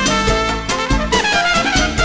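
Trumpet solo over a salsa band's drums and bass: a fast run of notes that steps downward in pitch through the second half.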